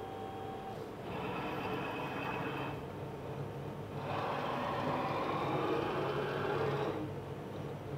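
Makera Carvera desktop CNC's axis motors driving the head and bed in two moves, one starting about a second in and a longer one from about four to seven seconds, over a steady machine hum. This is the automatic tool changer dropping the probing tool and going to fetch an end mill.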